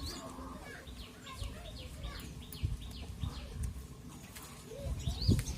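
A bird calling in a quick run of short, high, falling chirps, about three a second, over a low outdoor rumble, with a thump near the end.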